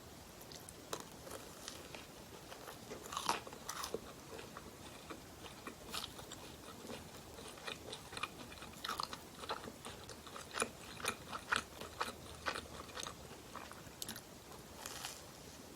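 Close-miked bites and chewing of bakery pastry, with crisp crackling crunches. The crunches come in irregular clusters, loudest about three seconds in and again in a run of bites partway through.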